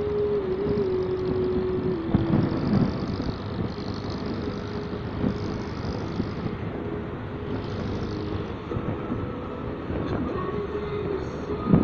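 Motorcycle engine running under way, with wind and road noise over the microphone. The engine's steady note steps down in pitch about two seconds in, as the bike eases off.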